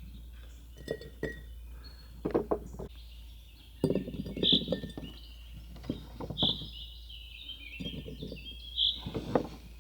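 Glass jars clinking and knocking as they are handled, in irregular taps. Behind them a bird sings a short high phrase about every two seconds.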